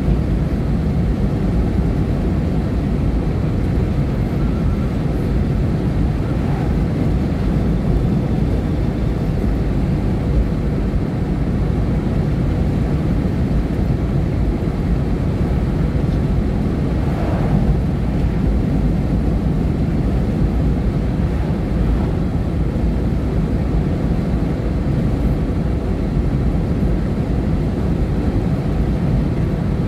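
Steady low rumble of a vehicle on the move, even throughout with no distinct events.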